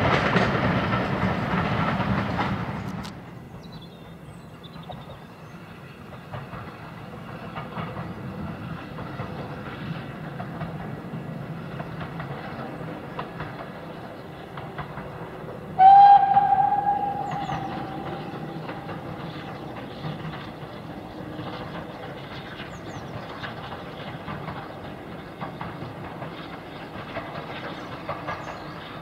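Passenger coaches of a heritage train rolling past on the track, loud at first, then a sudden drop to the quieter running of a distant steam train. About halfway through, a steam locomotive whistle gives one long blast that starts loud and fades away over a couple of seconds.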